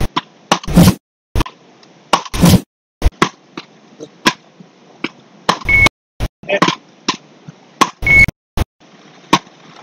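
Wooden beach paddles (matkot) striking a small rubber ball in a rally: sharp knocks every second or two, with lighter clicks between them. Twice a short high electronic beep sounds with a hit, as the speed-scoring system registers the shot.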